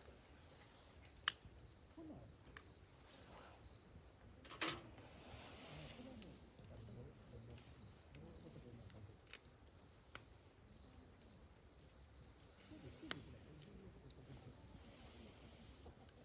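Near silence: faint outdoor background broken by a few short, sharp clicks and knocks, the loudest about a second in and halfway through.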